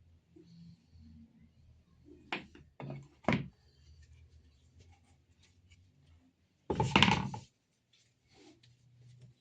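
Workshop handling of wooden parts: a few sharp knocks of wood on wood or on the bench about two to three seconds in, then one louder, brief noisy burst under a second long about seven seconds in.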